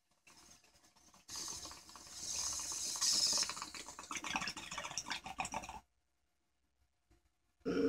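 Water bubbling rapidly in a glass bong as a hit is drawn through it. It starts faint, grows louder about a second in, and stops suddenly after about five seconds.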